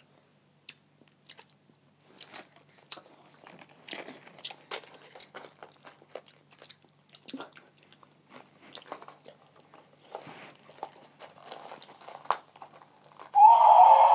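Jelly beans being chewed close to the microphone, with small wet clicks and crackles. A loud, harsh noise lasting about two seconds starts near the end.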